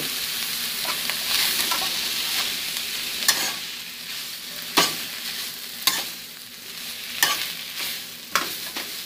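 Shredded chicken and onion sizzling in hot oil in a nonstick frying pan while a plastic spoon stirs and scrapes through it. The sizzle is steadier in the first few seconds, then softer, with about five sharp knocks of the spoon against the pan.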